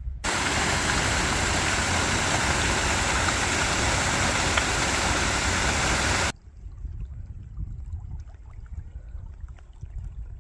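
Loud, even rush of a mountain creek's fast-flowing water, which starts and cuts off abruptly about six seconds in; a much quieter, uneven low rumble follows.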